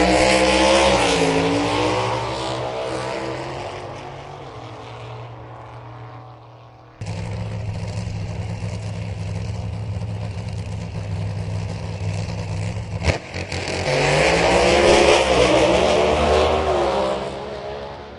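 Drag racing car engines. One car accelerates hard, its note rising, then fades away over several seconds. After an abrupt cut comes a steady low engine rumble with a sharp crack partway through, then a second hard acceleration rises loud and fades away.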